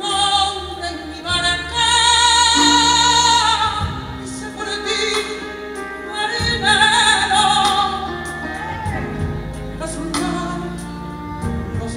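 A male copla singer singing a ballad with musical accompaniment, holding long notes with wide vibrato.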